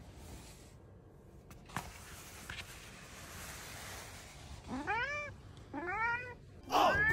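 A cat meowing three times, each call rising and then falling in pitch, about a second apart and louder each time.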